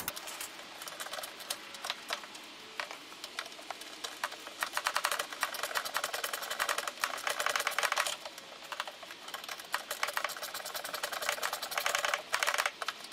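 Small ratchet wrench clicking rapidly as an 8 mm bolt is undone, in quick runs of clicks with brief pauses between strokes.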